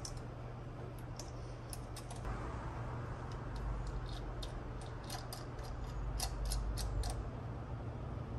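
Scattered light metallic clicks and taps as the wire hold-down clip is fitted back onto an inline glass bowl fuel filter and worked into place by hand, over a steady low hum.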